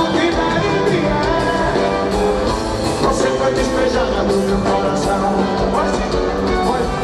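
Live forró band music with a steady beat of drums and a singing voice over it.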